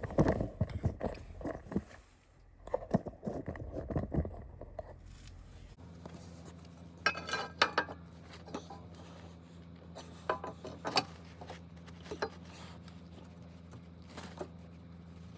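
Scattered clicks, knocks and scrapes of metal parts being handled while a motorcycle center stand and its screw are fitted by hand, densest in the first few seconds. A faint steady low hum runs under the second half.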